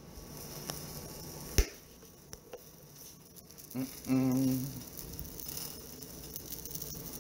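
Kitchen handling noises while eggs fry faintly in a pan: one sharp click or knock about a second and a half in, a couple of lighter clicks after it, and a short low hum near the middle.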